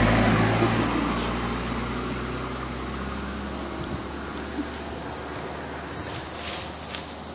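Steady high-pitched chorus of night insects, with a vehicle's low rumble fading away over the first few seconds.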